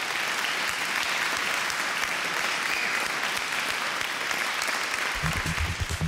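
Large audience applauding steadily. About five seconds in it cuts to music with a deep bass beat.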